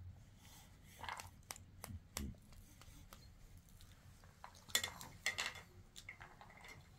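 Scattered light clicks and knocks of household handling, loudest in a short clatter about five seconds in.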